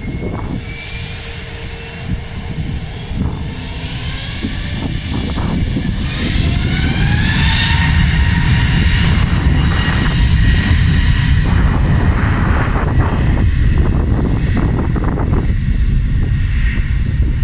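Airliner engines running, with whining tones rising in pitch about six seconds in and the sound growing louder into a steady rumble.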